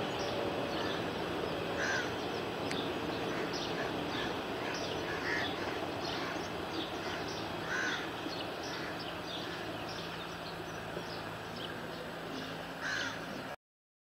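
Crows cawing several times over the steady rumble of a passing passenger train's coaches, which slowly fades. The sound cuts off abruptly near the end.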